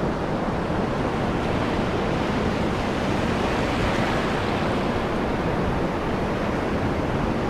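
Ocean surf washing up the beach and swirling in foam, a steady rush.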